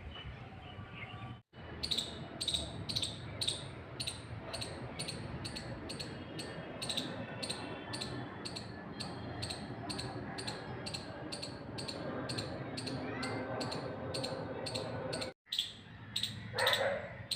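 An animal calling in short, high chirps repeated evenly about three times a second, over a steady background hum.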